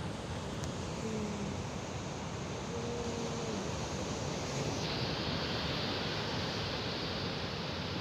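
Sea surf and rain making a steady, even rushing noise.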